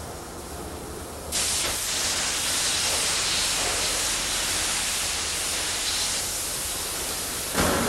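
A ring of high-pressure water jets spraying a log to strip off loose bark. It is a steady, loud hiss that starts abruptly about a second in and grows fuller, with more low rumble, near the end.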